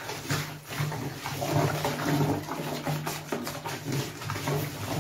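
Wooden stick stirring a foamy liquid-detergent mixture in a plastic basin: the liquid sloshes and splashes in uneven pulses.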